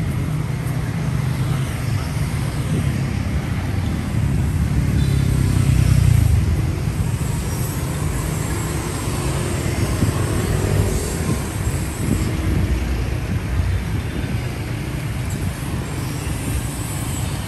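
Street traffic: motor scooters and cars passing in a steady stream, with a low rumble that swells to a louder pass about six seconds in.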